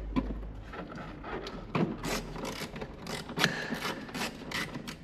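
Irregular clicks and scraping of a small metal hand tool against the hard plastic of a 3D-printed airbox as it is fastened in the engine bay.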